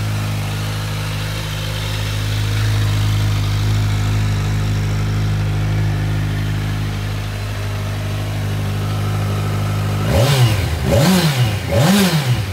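Kawasaki Z1000SX inline-four engine with an Akrapovic aftermarket exhaust idling steadily, then revved with three quick throttle blips near the end, each rising and dropping straight back to idle.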